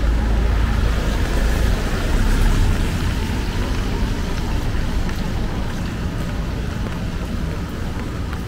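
Traffic on a rain-wet city street: a vehicle's low rumble passes and eases off about three seconds in, over a steady hiss of rain and wet road.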